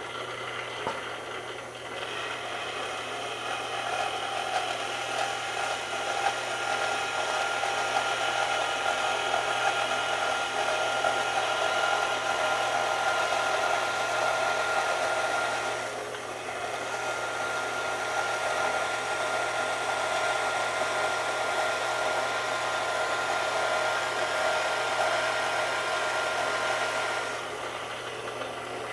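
Vertical bandsaw running, its blade cutting into a block of wood with a steady hum and whine. The blade is set up for cutting steel, not wood. The cutting noise eases briefly about halfway through, then resumes, and stops shortly before the end while the saw keeps running.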